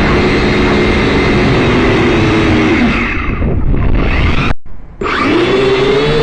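Syma X5C quadcopter's small electric motors and propellers whirring with a low rumble underneath. The pitch sags and the sound fades about three seconds in, it cuts out briefly, then the whir comes back rising in pitch.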